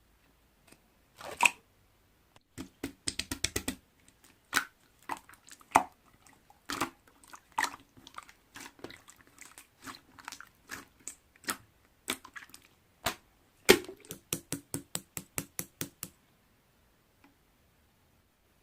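Slime being squeezed and worked by hand, making a long run of wet clicks and pops, some in quick strings of about four a second, stopping a couple of seconds before the end.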